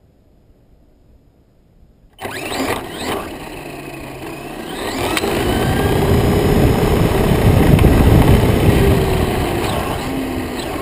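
A model airplane's small motor starts abruptly about two seconds in and runs close by, growing louder toward its peak and then easing off a little near the end.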